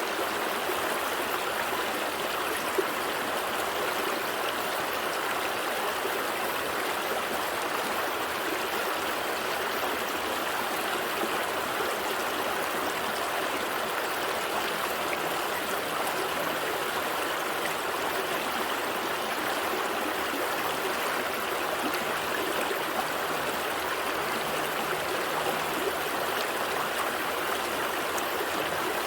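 Small stream flowing steadily over rocks, a constant rush of water with splashes and trickles.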